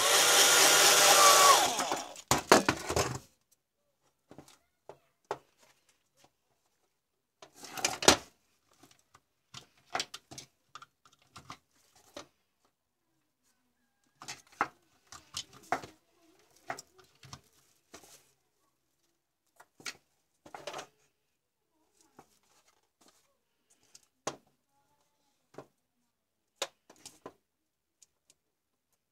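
Power drill boring through a white plastic housing for about two seconds, then a few short bursts as it stops. After that, scattered clicks and knocks of plastic parts and wires being handled.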